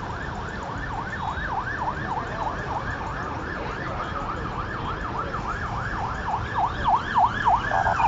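Emergency-vehicle siren yelping, a rapid rise and fall in pitch about three to four times a second. It grows louder near the end, over the low rumble of street traffic.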